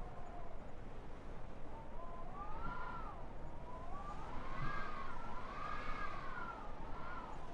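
Howling blizzard wind: a whistling howl in two or three tones that rises and falls in slow swells, strongest a little past the middle, over a steady rushing hiss of wind.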